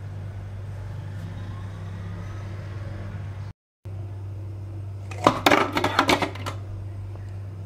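Ice cubes dropped into a plastic food processor bowl, clattering in a quick run of sharp knocks for about a second, starting about five seconds in, over a steady low hum.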